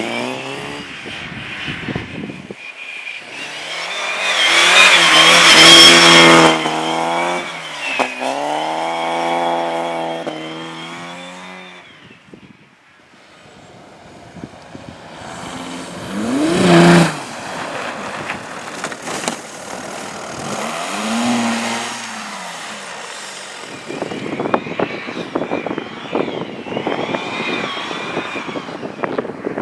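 Race cars driving past on a circuit one after another, their engines revving hard and easing off as they pass. The loudest pass comes about four to six seconds in, with another sharp peak a little past the middle. The last few seconds hold a rougher, crackling noise with no clear engine note.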